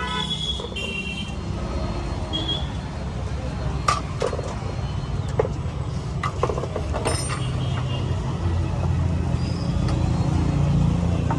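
Yamaha R15's single-cylinder engine idling steadily, with a few sharp clicks over it in the middle.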